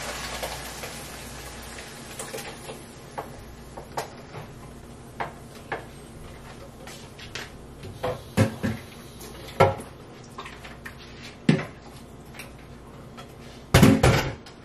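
Kitchen dishes and utensils clinking and knocking at the sink: scattered light clicks, several louder clunks in the second half, and a quick run of heavy knocks near the end.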